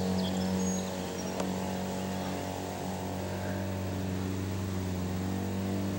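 Steady low mechanical drone of a running motor or engine, even in level throughout, with a brief faint tick about a second and a half in.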